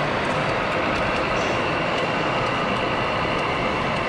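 Steady, dense din of a busy trade-fair hall with RC model construction machines working, with a faint high whine coming in about halfway through.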